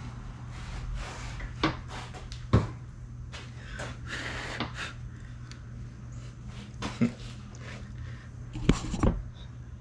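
Scattered small clicks and knocks of hands working on a plastic car key shell while gluing its transponder chip in place, with a brief hiss in the middle, over a steady low hum.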